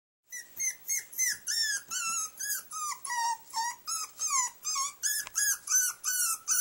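Young puppy crying, distressed at being shut in a cage: a rapid run of short, high-pitched whining yelps, about three a second, each dropping in pitch.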